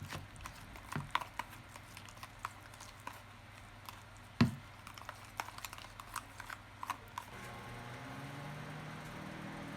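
Scattered light clicks and knocks of handling, with one louder knock about four and a half seconds in, then a steady mechanical hum that starts about seven seconds in.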